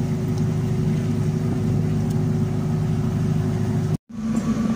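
A boat's engine running steadily, an even low drone. It cuts out abruptly for a split second near the end.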